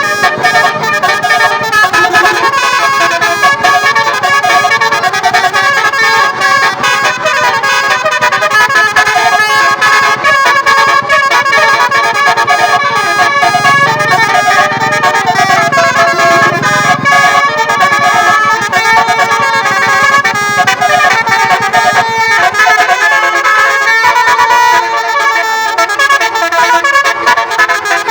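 A bus's 12-note basuri musical air horn playing a running melody, held notes switching quickly from one pitch to the next. It is loud throughout.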